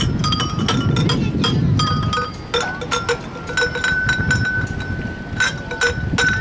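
Metal chime tubes on a playground music panel struck by hand: a run of sharp clinks, each leaving a short ringing tone, with one note ringing on for a couple of seconds in the middle. A low rumble sits under the first couple of seconds.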